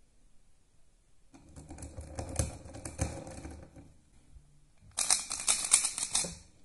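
Plastic 3x3 speed cube, a Yuxin Little Magic freshly lubed with Angstrom Gravitas and Dignitas, clicking as it is handled and pressed together, then turned fast near the end in a dense run of clicks lasting about a second and a half.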